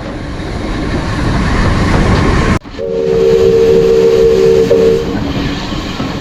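Steam train running, its noise steadily growing louder. After a sudden cut, the locomotive's whistle gives one steady blast of several notes at once, about two seconds long, over the train's running noise.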